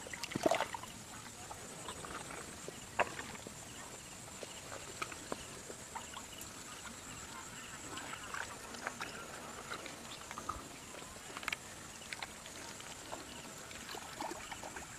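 Hands groping through wet mud and shallow water, making scattered small squelches and splashes, over a steady high-pitched drone.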